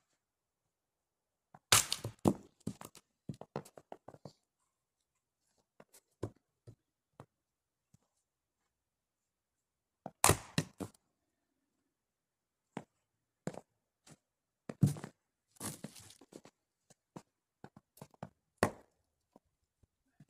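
Four loud, sharp knocks, about 2, 10, 15 and 18.5 seconds in, each followed by a brief run of smaller knocks and clatters.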